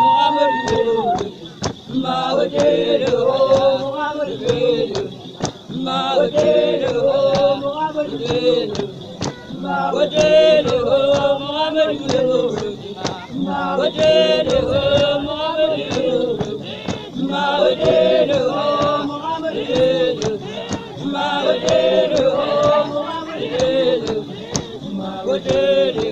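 Group of Basotho female initiates (bale) singing and chanting together without instruments, in rising and falling phrases, with regular sharp beats keeping time.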